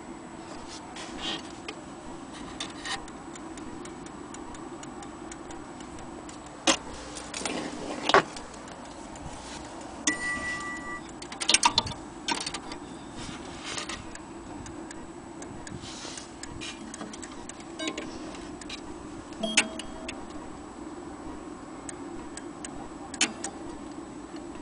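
Gustav Becker Westminster mantel clock movement ticking with its pendulum swinging, with scattered louder knocks and clicks as the movement is handled.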